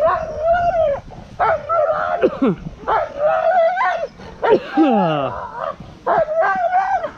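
Greyster sled dogs yelping and howling while held back in harness: about five loud, high, wavering calls in quick succession, a couple of them sliding steeply down in pitch. This is the eager pre-start noise of sled dogs wanting to run.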